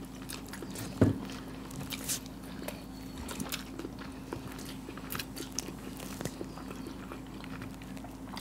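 Close-up chewing and biting of hard-boiled eggs coated in masala gravy: wet mouth sounds with many small clicks. There is one low thump about a second in and a faint steady hum underneath.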